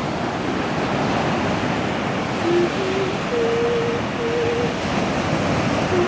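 Ocean surf: waves breaking and washing up onto a sandy shore in a steady rush. A few soft held notes, hummed, sound over it about halfway through.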